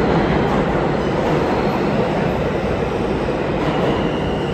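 New York City subway train pulling into an underground station, its wheels rumbling loudly and steadily on the rails, echoing off the platform, with a faint high squeal near the end.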